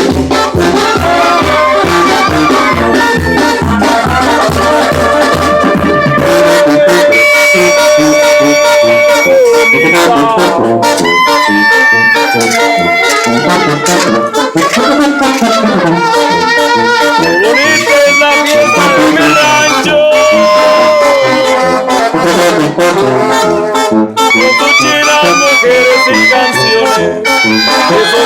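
Mexican banda, a brass band, playing: trumpets and trombones carry the tune over a steady beat. The low bass pulses drop out about six seconds in.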